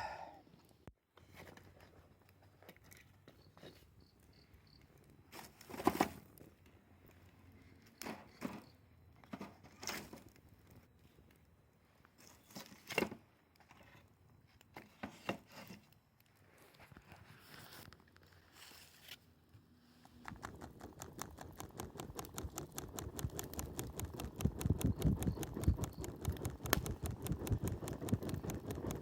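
Wood campfire crackling: scattered sharp pops and snaps at first, then from about twenty seconds in a dense, continuous crackle that grows louder.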